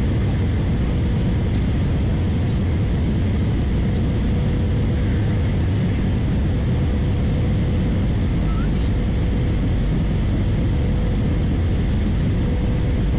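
Steady cabin noise of an Airbus A320-214 in flight: engines and rushing air as one even, loud drone, with a thin steady tone running through it.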